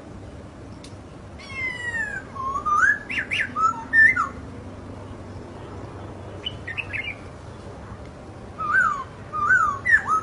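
Laughingthrush (poksay) singing: clusters of loud slurred whistles that swoop up and down, opening with a quick run of downward-sliding notes, a softer phrase midway, and more whistled phrases near the end.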